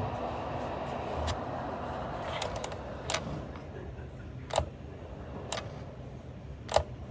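Steady fan whir of a small ceramic space heater, easing off slightly about halfway through, with four sharp clicks or taps in the second half.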